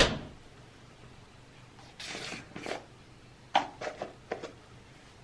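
Kitchen handling noises: a sharp knock at the start, a short rustle about two seconds in, then a few quick clicks and knocks as items are taken from a cupboard shelf.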